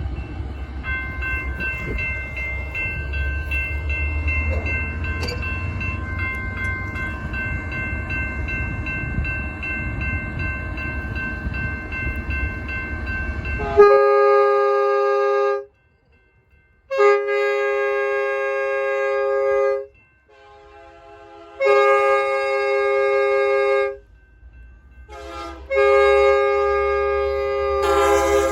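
Railroad crossing bell ringing steadily over a low rumble. About 14 seconds in it cuts off abruptly and a multi-tone train horn takes over, sounding four long blasts with two short toots between them. The horn is loud.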